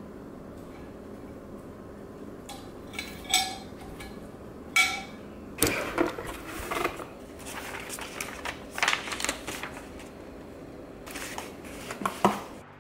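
Cardboard shipping box being opened and a coiled bundle of string lights with plastic sockets lifted out and handled: irregular rustling, scraping and sharp taps, over a steady low room hum.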